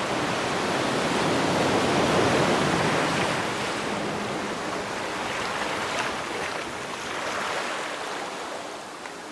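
Ocean waves washing onto a shore, one swell rising about two seconds in and slowly ebbing away.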